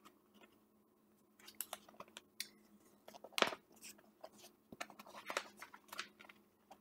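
Pages of a picture book being opened and turned by hand: a scatter of soft paper rustles and crinkles, the loudest about three and a half seconds in.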